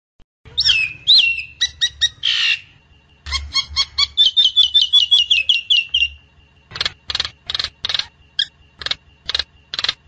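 Myna singing: a few loud whistled notes with quick swoops in pitch, then a rapid run of about a dozen short, falling whistles. From about two-thirds of the way in come about nine harsh, grating notes, two or three a second.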